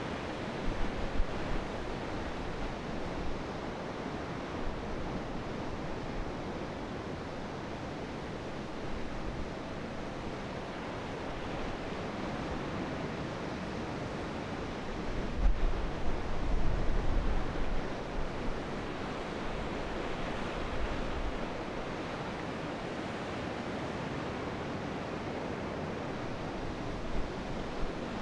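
Steady wash of open sea and wind, with no engine or horn tone. Gusts buffet the microphone with low rumbles about a second in, for a few seconds past the middle, and again at the end.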